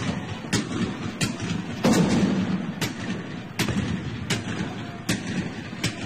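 Battle ambience of scattered musket and rifle fire, sharp single shots coming about one every three-quarters of a second, over a continuous dense din that swells about two seconds in.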